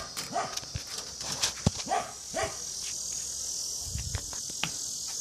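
A dog gives several short yips in the first two and a half seconds, then falls quiet, over a steady high buzz of insects.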